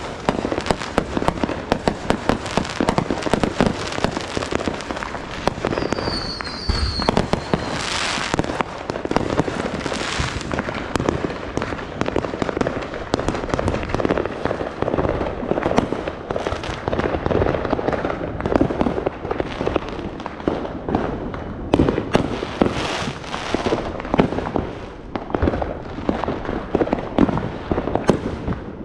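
Fireworks and firecrackers going off continuously: a dense, unbroken crackle of pops and bangs.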